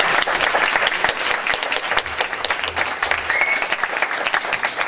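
Audience applauding: many people clapping steadily and densely.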